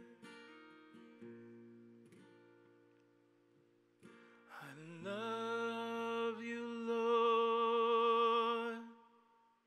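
Acoustic guitar chords strummed and left to ring, fading away. About halfway through, a singer slides up into one long held note with vibrato over the guitar, then lets it go near the end.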